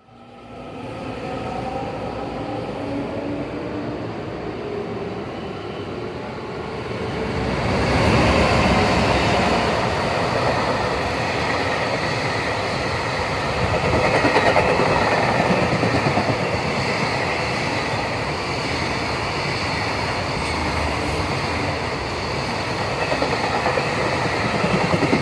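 A freight train hauled by two EF210 electric locomotives (300 and 100 series) passing through a station without stopping. It grows louder over the first several seconds as it approaches. From about eight seconds in comes the loud, steady rumble and rhythmic clatter of the freight wagons running past on the rails.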